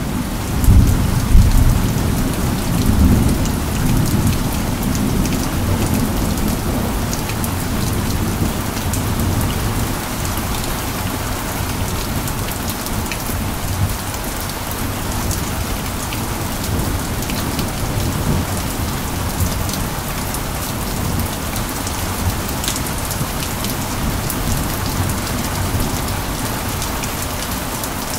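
Steady rain falling, with a low rumble of thunder in the first few seconds that dies away while the rain carries on.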